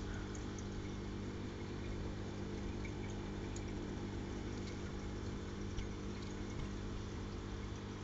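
Aquarium pump running with a steady hum, over an even hiss of moving water and a few faint clicks.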